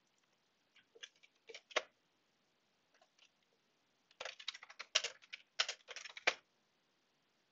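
A few separate clicks, then a quick run of keystrokes on a computer keyboard as a command is typed into a command prompt.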